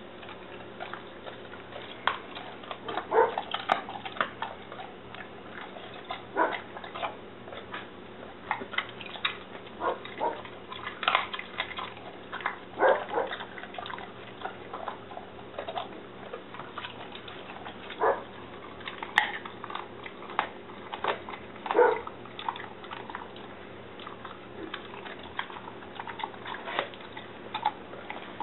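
Great Dane chewing raw bone-in pork ribs: irregular crunches and cracks of rib bone between its teeth, with wet smacking of the jaws. A steady low hum lies underneath.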